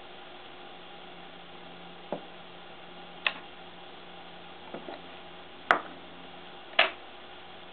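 A handful of light, sharp clicks and knocks, about five, the loudest two in the last third, as a small glass bottle and a brush are handled and set down on a wooden work board, over a steady low hum of room tone.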